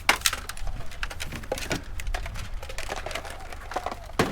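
Discarded electronics being picked up and handled: hard plastic and metal clattering in an irregular run of clicks and knocks, sharpest at the start and again near the end.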